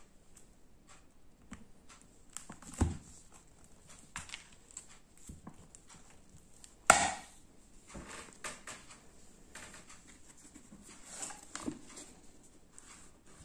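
Kitten biting and pawing at a paperback book on a wooden floor: scattered soft taps, paper rustles and light knocks, with a soft thump about three seconds in and a louder, half-second rustle of the book about seven seconds in.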